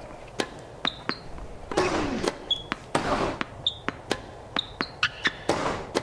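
Tennis rally recording: ball hit by rackets and bouncing in quick succession, sneakers squeaking on the court and players grunting with their shots.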